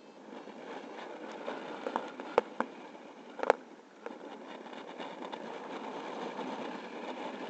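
Steady rushing of air on the microphone of a paraglider in flight, with a few sharp knocks, the loudest about two and a half and three and a half seconds in.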